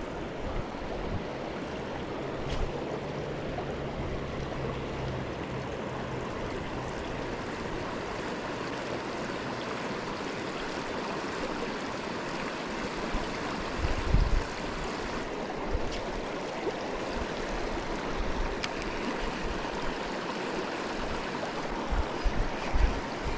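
Creek water rushing steadily over rocks, with a few low thumps about halfway through and near the end.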